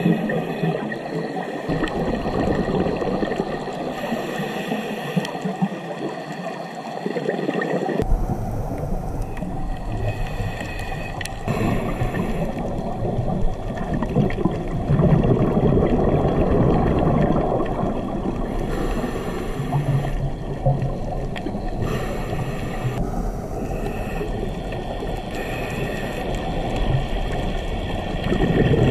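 Underwater ambience recorded on a diving camera: a steady, muffled rushing and gurgling of water that swells and eases irregularly.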